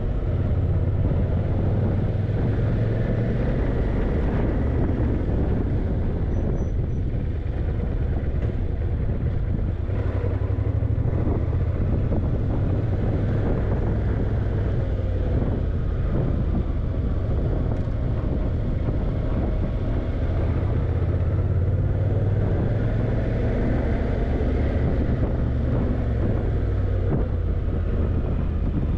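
Yamaha TDM900's 900 cc parallel-twin engine running while the motorcycle rides down winding bends, mixed with a low rush of wind on the microphone; its pitch rises and falls gently a few times.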